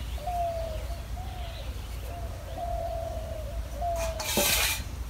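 A dove cooing over and over: a string of long, slightly falling notes, one after another. About four and a half seconds in, a short, sharp scraping rustle cuts in for about half a second.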